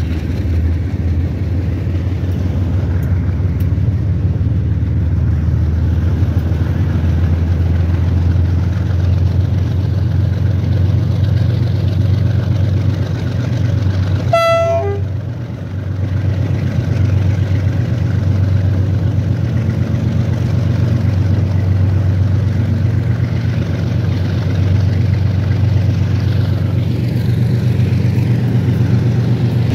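Train running with a steady low diesel-engine drone, and a brief horn toot about halfway through.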